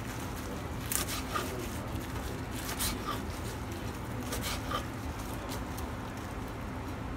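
Knife cutting lamb fat into small pieces on a wooden cutting board: a handful of short, sharp taps of the blade on the board over a steady low hum.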